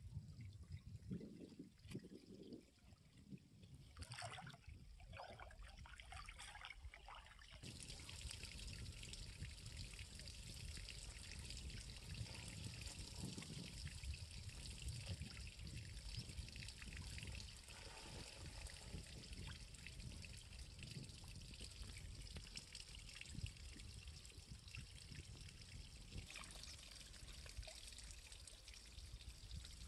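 Faint trickling and lapping of shallow canal water around a person standing waist-deep in it, settling into a steady trickle about eight seconds in.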